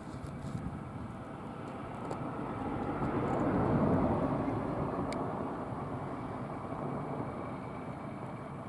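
Vehicle noise: a steady rushing that swells to a peak about four seconds in and then eases off.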